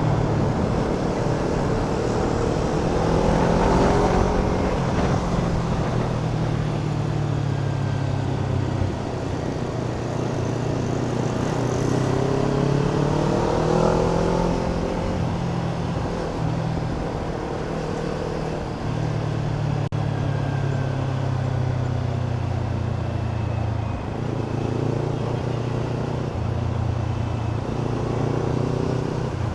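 Kawasaki Ninja 300's parallel-twin engine running on a city ride, revs rising and falling through gear changes. It pulls hardest a few seconds in and again near the middle.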